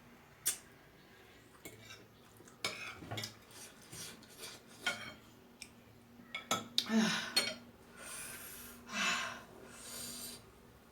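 Eating utensils clicking and scraping against a bowl of spicy instant noodles, with eating noises. Several loud breathy puffs come in the second half.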